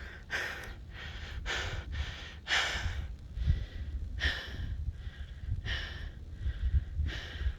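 A man breathing hard after a steep uphill climb, quick heavy breaths in and out, more than one a second.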